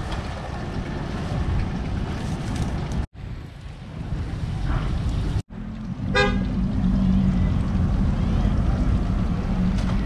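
Street traffic noise from passing cars and motorbikes, with a short horn toot about six seconds in. After the toot a nearby engine runs with a steady hum.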